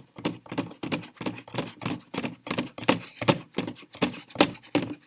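PVC valve and pipe fitting being twisted tight by hand against a clear plastic tub, giving an even series of short plastic knocks and rubs, about three a second.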